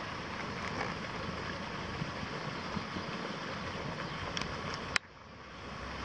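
Steady outdoor background noise of distant city traffic. About five seconds in, a sharp click, after which the noise drops away and fades back up over the next second.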